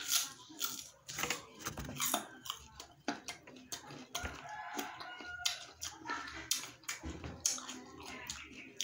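Close, wet chewing and crunching of firm, crunchy mango slices, a run of crisp bites and mouth noises a few times a second.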